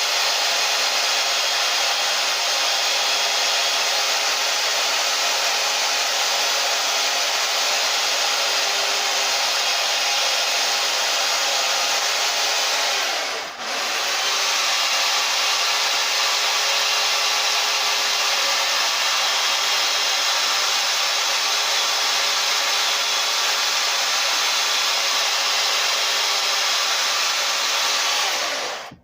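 Chainsaw running at high revs, its bar cutting detail into a wooden log. The throttle eases briefly about halfway, and the saw stops abruptly at the end.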